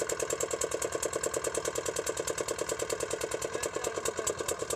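Fishing boat's inboard engine running at a steady speed, with a fast even beat of about a dozen pulses a second.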